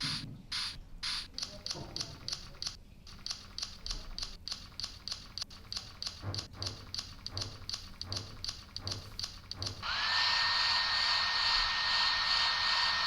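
Hair-cutting scissors snipping rapidly, a few snips a second. About ten seconds in, a steady electric whir with a high whine starts up and runs on.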